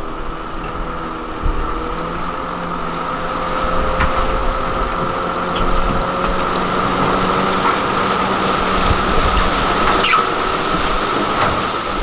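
Hyundai Trago 25-ton dump truck's diesel engine running steadily while its hydraulic hoist raises the tipper bed to dump soil, with a steady high whine over the engine and a few sharp clicks.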